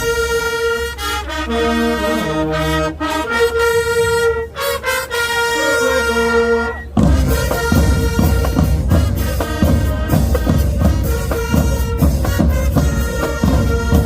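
A school marching band's brass section playing long held chords, then about seven seconds in the drums come in with a driving beat under the horns.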